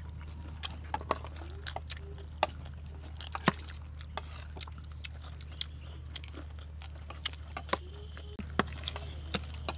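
Close-up chewing and crunching of crispy fried food, with irregular sharp clicks of metal spoons against plates and tray, over a steady low hum.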